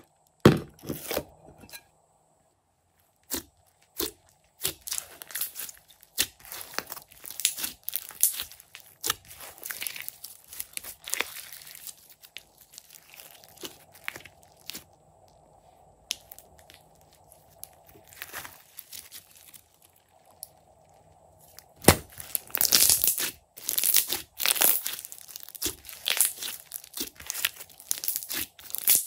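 Hands kneading, squeezing and stretching glossy slime, giving sticky crackling and popping of trapped air in irregular runs, with a brief pause early on and the busiest stretch near the end.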